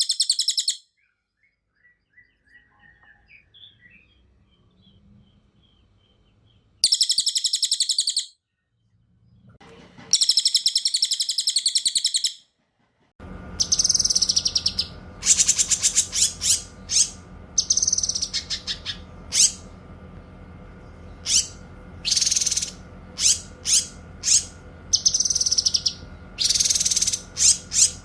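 Cililin and cucak kinoy songbirds singing in turn. First come long, very fast, high-pitched rolling trills, then from about halfway in many short, sharp chirps and trill bursts over a steady low hum.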